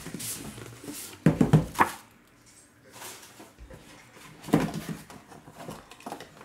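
Unboxing a trading-card box packed in a metal tin: plastic wrap crinkles, then a cardboard sleeve is slid off the tin with a few loud rubbing scrapes about a second and a half in. A knock about four and a half seconds in comes as the tin's metal lid is lifted open.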